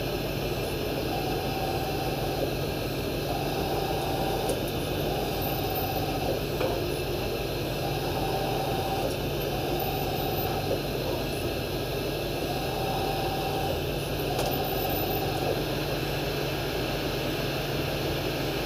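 CNC machining-centre spindle rigid-tapping holes in a metal block over a steady machine hum. A short whine of about a second recurs roughly every two seconds as the spindle drives the tap in and reverses it out.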